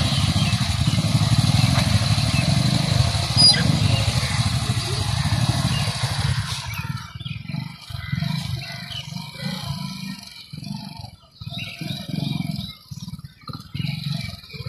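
Small motorcycle's engine running at low speed as it is ridden slowly through a cone course, its note rising and falling with the throttle. About halfway through the sound turns uneven and fades in and out as the bike moves off.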